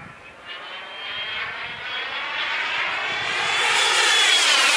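Small Wren 54 Mk4 model jet turbine in a yellow F-16 RC jet on a high-speed low pass, its whistle and rush growing steadily louder as it approaches, then the pitch dropping near the end as it goes by.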